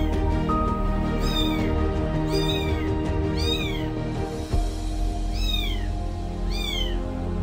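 Young kitten mewing repeatedly, about six high-pitched cries, each rising and then falling, roughly once a second, with a gap in the middle.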